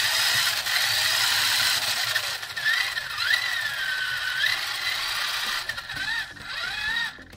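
Brushed electric motor of a Kyosho Optima Mid RC buggy running on the bench, a rattling whir with a whine that wavers up and down in pitch as the throttle changes, then stops near the end. It is definitely struggling, which the owner puts down to a faulty connection in the motor.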